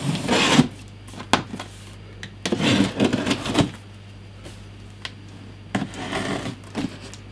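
A knife slicing through the tape and cardboard of a box in three scratchy strokes, the longest about a second, with a few sharp clicks in between, over a low steady hum.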